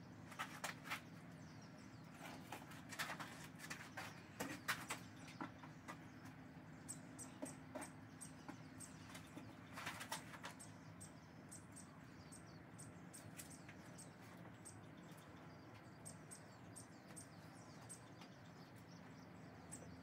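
Faint, irregular scrapes and taps of a Bondo scraper scooping up and spreading pour-in transom compound, busiest in the first half and again about ten seconds in, over a steady low hum.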